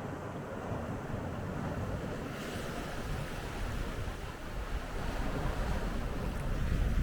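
Strong wind rumbling on the microphone over the wash of sea waves. About two and a half seconds in, a hissing surge of water comes in.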